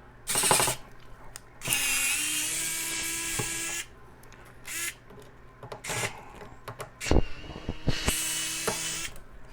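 A small electric drill-driver's motor whines in two runs, about two seconds and then about one second, backing out the screws of a graphics card's cooler. Small clicks and knocks of the bit and screws come between the runs.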